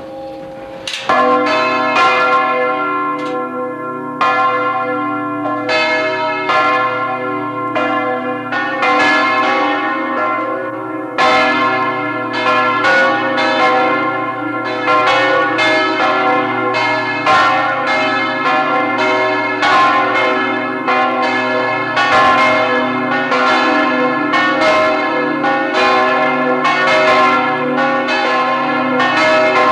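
Full peal of the Liesborn abbey church bells: several swinging bells ringing together in an overlapping, continuous clangour. The peal jumps to full strength about a second in, and the strokes come thicker from about ten seconds on.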